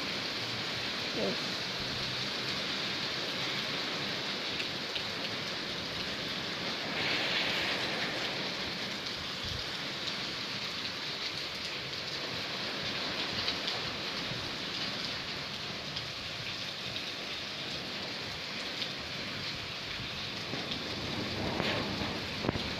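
Rain falling steadily, briefly louder about seven seconds in.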